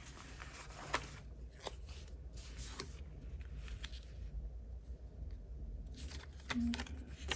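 Faint handling of paper stickers: a few soft, scattered clicks and rustles over a low steady hum.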